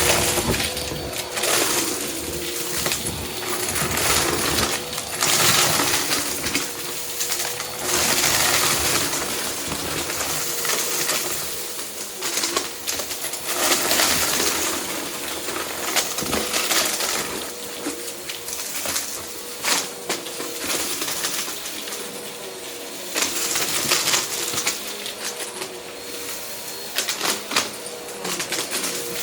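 Vacuum cleaner running with a steady motor whine, its suction rising and falling as it is pushed back and forth. Throughout, small bits of debris click and rattle as they are sucked up.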